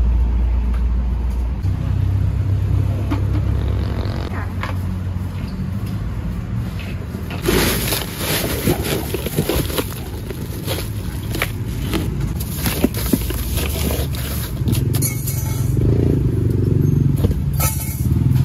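Crushed ice crunching and scraping as bowls of bagged seafood are pressed into it, in crackly bursts from about seven seconds in. Under it runs the steady low rumble of passing motor traffic.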